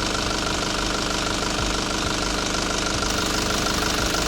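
Nissan ZD30 four-cylinder diesel engine idling steadily.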